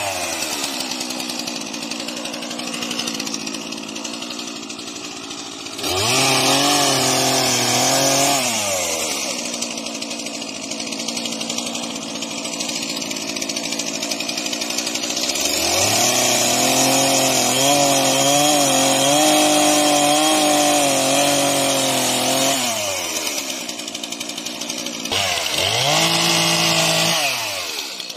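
Stihl MS 231 two-stroke chainsaw running through maple wood. The engine revs up to full throttle and drops back three times: briefly about six seconds in, for about six seconds in the middle, and briefly near the end. Between the bursts it runs slower and quieter.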